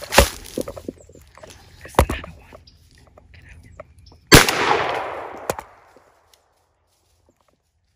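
Footsteps rustling and crunching in dry leaves, then a single loud gunshot about four seconds in, its echo dying away through the woods over a second and a half.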